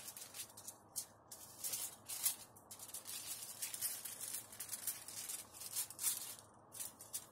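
Sheets of aluminum foil sealed in plastic laminate pouches rustling and crinkling as they are handled and stacked, in irregular bursts of hissy rustle.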